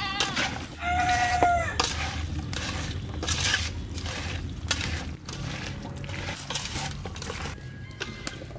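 A hand squishing and turning chopped goat skin, onions and spice paste in an aluminium bowl, a run of short wet clicks throughout. A rooster crows once about a second in.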